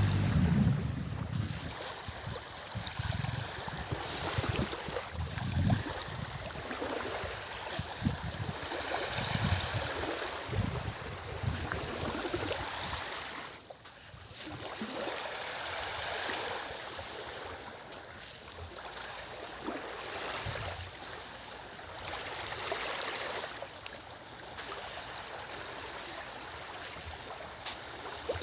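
Small waves of a calm sea lapping and washing on the shore, swelling and fading every few seconds. Wind buffets the microphone in the first few seconds.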